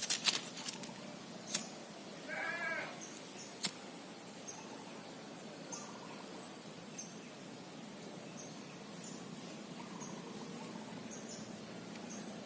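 An animal gives one short, wavering call about two seconds in, with a few sharp clicks near the start and faint high chirps repeating every second or so.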